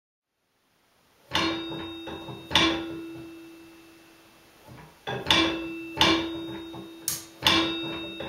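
A resonant sound object, likely metal, struck about six times at uneven intervals after a second of silence. Each strike rings on with the same steady tone and bright overtones before dying away.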